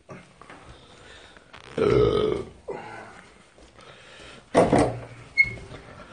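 A man burps loudly about two seconds in, a low rough belch of under a second, with a second, shorter burst near five seconds.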